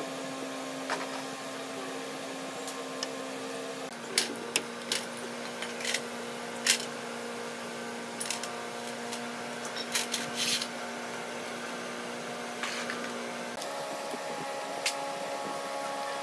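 A socket tool working the rusted steel bolts of an old generator frame: a run of sharp metal clicks and scrapes from about four to eleven seconds in, over a steady hum that shifts pitch twice.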